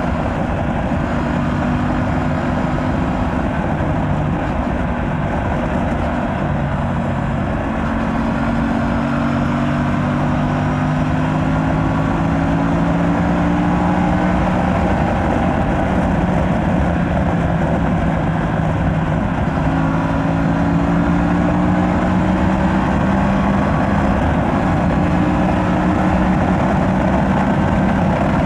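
Aprilia RS 457's parallel-twin engine with its stock exhaust, running under way. Its note climbs slowly several times and drops back between the climbs, over a steady rushing noise.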